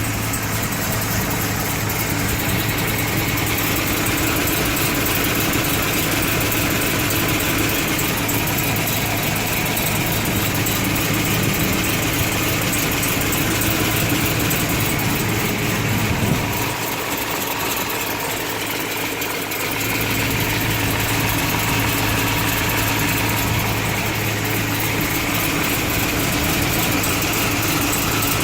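2013 Chevrolet Camaro SS's 6.2-litre V8 idling steadily, with the chirping sound whose cause the owner cannot identify. The low hum drops away for a few seconds about two-thirds of the way through.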